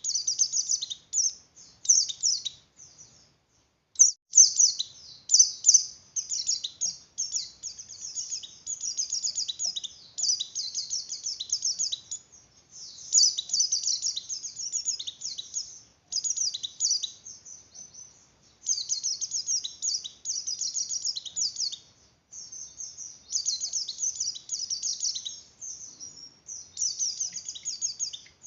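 White-eye (pleci) in breeding condition singing in rapid, high chattering phrases a few seconds long, broken by short pauses.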